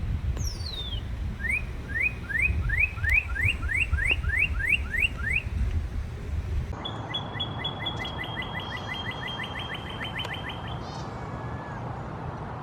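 Northern cardinal song: a falling whistle, then a run of about ten rising slurred whistles at about two a second. After a sudden change in the background about seven seconds in, a faster trill of about six notes a second follows. A low rumble runs under the first half.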